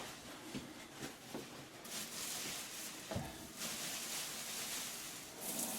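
Kitchen sink tap running, a steady hiss that starts about two seconds in and grows brighter near the end. A few light knocks come before it and a dull thump a little after three seconds.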